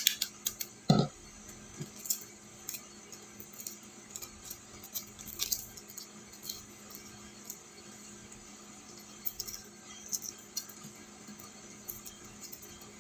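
Faint scattered clicks and crackles of boiled chicken eggshell being peeled by hand, with one louder knock about a second in.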